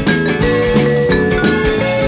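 Background music with a steady beat and held melody notes that change pitch every half second or so.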